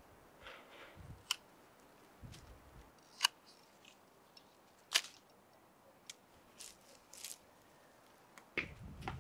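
Scattered sharp clicks and light knocks of small hard objects, a few seconds apart, then a busier run of knocks and clatter near the end.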